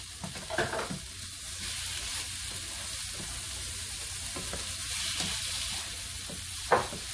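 Diced onion, carrot and celery sizzling as they soften in a nonstick frying pan, with a spatula stirring and scraping through them. One brief louder knock near the end.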